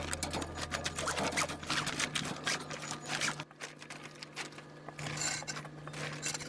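Large tent-roof fabric rustling and scraping as it is handled and shifted over concrete, with irregular crackles.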